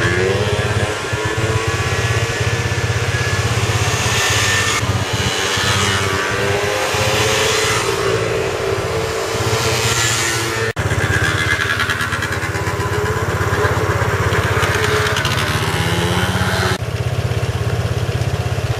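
Small motor scooters riding past one after another, their engines rising and falling in pitch as they approach and go by. The sound drops out for an instant about eleven seconds in.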